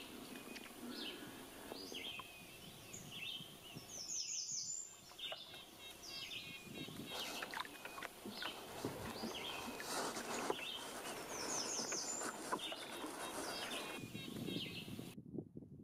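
Small birds chirping and calling repeatedly in forest, with a quick run of falling high notes twice, over a steady background hiss. The birdsong cuts off abruptly near the end.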